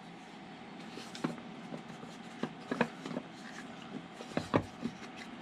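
A wooden puzzle box being handled and turned over: a scattering of soft wooden knocks and clicks with light rubbing, the loudest pair of knocks near the end.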